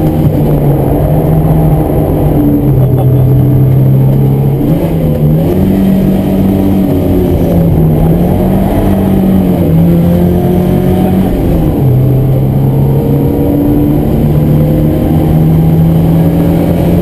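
Ford Escort Mk1 1100's four-cylinder engine heard from inside the cabin, driven hard on a track. Its pitch rises and falls through the corners, dropping abruptly about two and a half seconds in and again about twelve seconds in, then climbing back.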